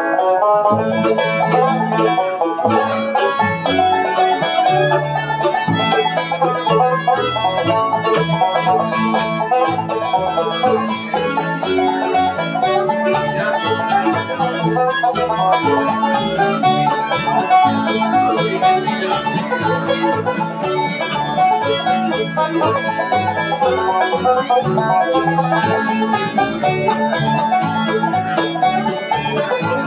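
Bluegrass band playing an instrumental: bowed fiddle, strummed acoustic guitar and plucked upright bass, with quick picked string lines over a steady beat.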